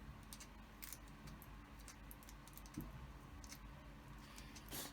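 Faint, scattered small clicks and crinkles of plastic toy packaging being handled and unwrapped.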